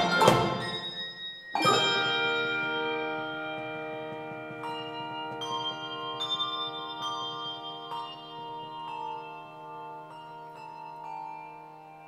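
Handbell choir playing: a few loud struck accents, then a full chord about a second and a half in that is left to ring and slowly fade, while single bell notes sound one at a time over it, spacing out toward the end.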